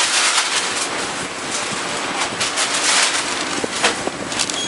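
Wind and handling noise on a handheld camera's microphone inside a car: a steady rush broken by many short scratchy rustles.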